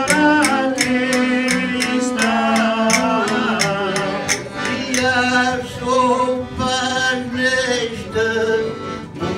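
Portuguese folk song, a man singing into a microphone over a small band, with a steady tapping beat about four times a second in the first half that drops out about halfway through.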